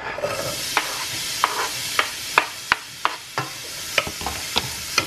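Chopped onion sizzling in hot oil in a stainless steel pan, with a wooden spoon stirring and knocking against the pan about ten times at uneven intervals.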